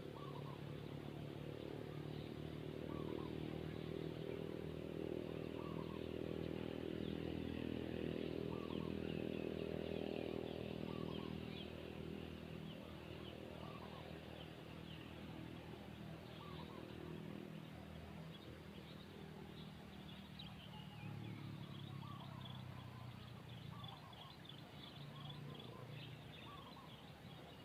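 Small birds chirping and twittering over a steady engine drone. The drone is strongest in the first ten seconds or so, fades, and swells again briefly later on.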